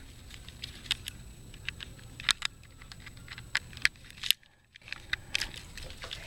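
Scattered small clicks and taps of hands handling and connecting the parts of a homemade alarm device to its pressure switch. The sound drops out briefly a little past halfway.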